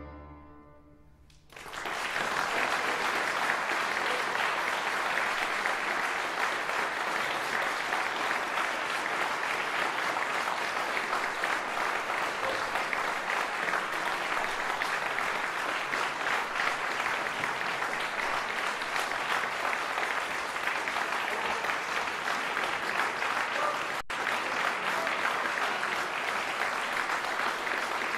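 The final chord of the cello and piano fades away, then, about two seconds in, an audience breaks into steady applause.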